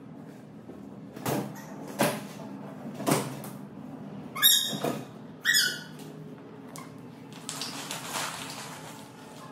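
Rubber hopper ball being bounced on: a few dull thumps, then two short rubbery squeaks falling in pitch about halfway through. Near the end, a soft rustle of plastic balls in a ball pit.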